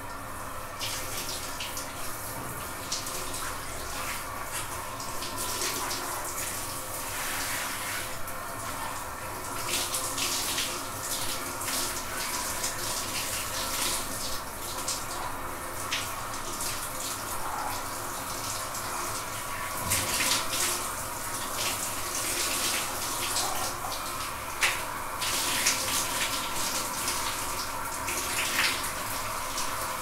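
Shower running: water spraying and splashing steadily, with frequent uneven louder splashes over the hiss, a few of them sharper in the second half.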